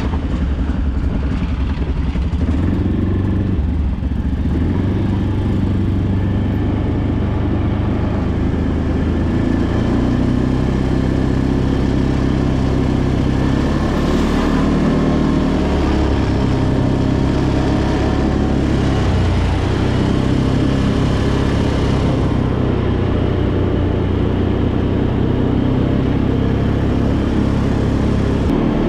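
ATV (quad bike) engine running as it rides along, heard close up, its pitch shifting up and down several times as the throttle changes.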